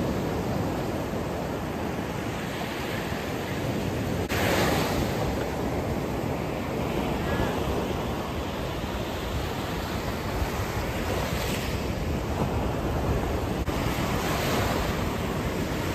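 Ocean surf breaking and washing up a sandy beach: a continuous rushing wash that swells several times as waves break.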